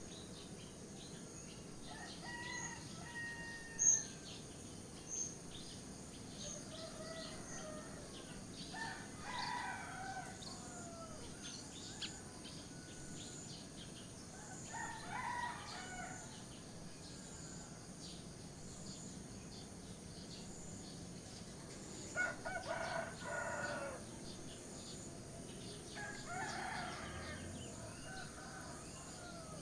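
Roosters crowing about five times, each crow a second or two long and a few seconds apart, over a steady background hiss. Small birds chirp between the crows, and the sharpest of these chirps comes about four seconds in.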